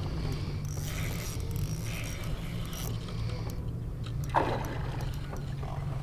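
Spinning reel being cranked, its gears whirring for a couple of seconds, over a steady low rumble. A short sharp knock a little past four seconds in.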